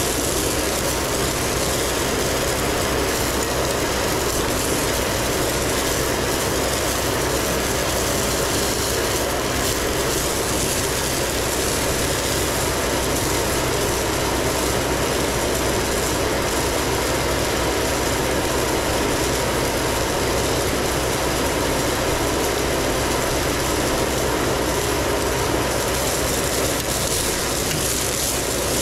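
Stone slinger truck running steadily, its conveyor belt throwing 3/4-inch crushed stone in a continuous stream. The engine hum mixes with a steady rush of gravel landing.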